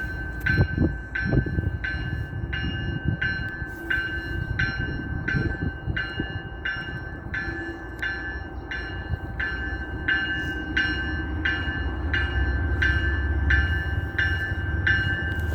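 Railroad warning bell ringing steadily, about one and a half strikes a second, over the low rumble of a diesel commuter train that grows louder near the end as the train starts to pull out.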